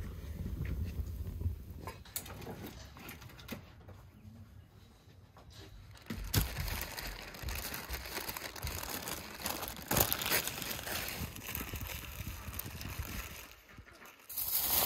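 Paper rustling and crinkling as a raw duck is handled on parchment paper, with a few sharp knocks about six and ten seconds in. A low rumble fills the first couple of seconds.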